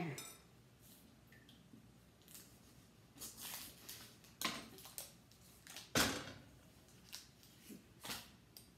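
Light, scattered kitchen handling sounds as butter is worked at the counter: soft rustles, scrapes and small clicks, with one sharper knock about six seconds in.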